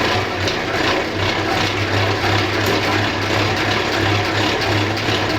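Centrifugal honey extractor spinning steadily at close to its top speed, flinging honey out of the uncapped frames: a constant low hum under an even mechanical whir.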